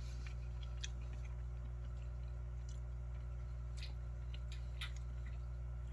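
Faint chewing of a mouthful of beans and rice, with a few soft mouth clicks, over a steady low hum.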